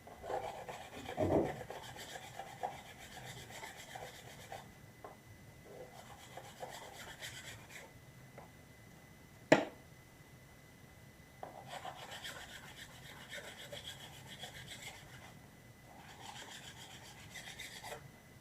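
Hand sanding of plastic filler on a 3D-printed prop part, scratchy rubbing strokes in several stretches of a few seconds with short pauses. A single sharp click comes about halfway through and is the loudest sound.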